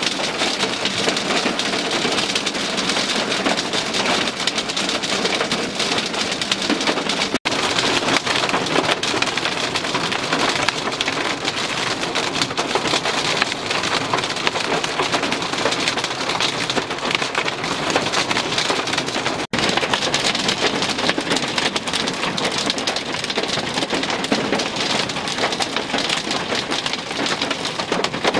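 Heavy rain pelting down in a steady, dense hiss, heard first from inside a vehicle and later in the open field. The sound cuts out for an instant twice, at about a quarter of the way through and about two-thirds of the way through.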